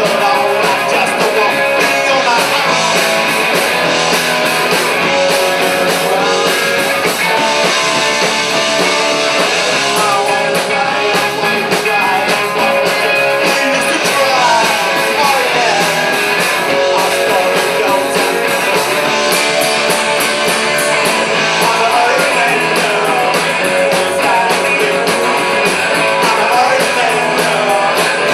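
Rock band playing live: electric guitars over a drum kit, loud and steady, with pitch slides on the guitar now and then.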